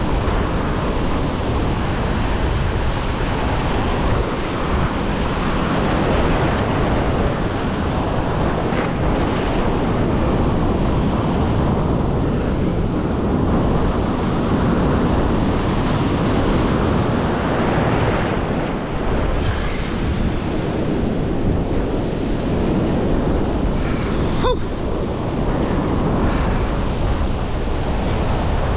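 Ocean surf washing against the shore, with wind buffeting the microphone.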